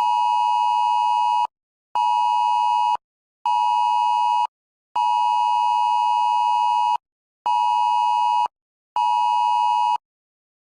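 Electronic alert tone: a steady, buzzy beep sounded in a long-short-short pattern, twice over.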